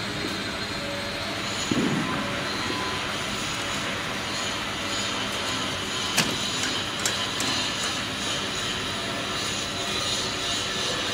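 Steady hum and hiss of factory machinery in a wire-mesh workshop, with a sharp metallic click about six seconds in and a couple of lighter clicks just after.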